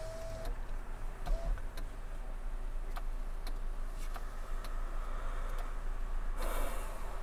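Steady low hum of a car on the move, heard from inside the cabin, with a few light ticks scattered through it. A brief rush of noise comes near the end.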